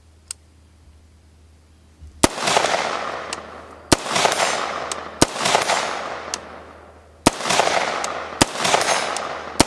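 AR-15 rifle shots fired one at a time, about six in all starting about two seconds in, one to two seconds apart. Each is a sharp crack followed by a long echo that takes over a second to die away.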